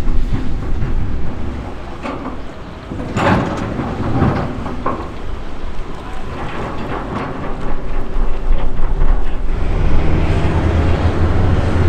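M3 amphibious bridging vehicle's diesel engine running, with a series of metallic knocks and clanks in the middle. The engine gets louder about ten seconds in.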